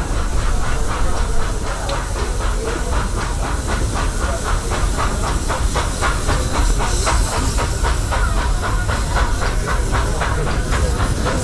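Narrow-gauge steam locomotive running at speed, its exhaust chuffing in a steady, even beat with a hiss of steam, and the train rumbling on the rails, heard from an open-sided passenger car.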